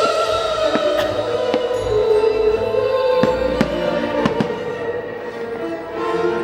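Fireworks show: aerial fireworks going off in several sharp bangs and crackles, mostly in the first four and a half seconds, over loud orchestral show music with a held, wavering melody.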